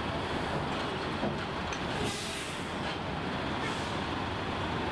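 Steady, even engine rumble aboard a car ferry.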